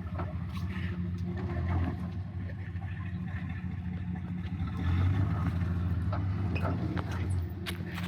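High-mileage pickup truck's engine running low and steady as it crawls slowly down a rocky off-road trail, with a few sharp clicks scattered through.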